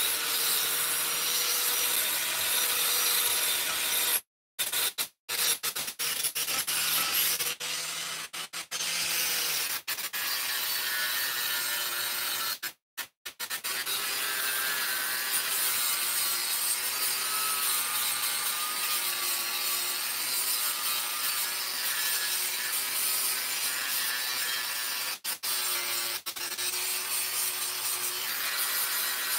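Corded angle grinder running against a thick drilled steel slab, grinding its surface, the motor's pitch dipping and wavering as it is pressed on and eased off. The sound cuts out completely for short moments several times.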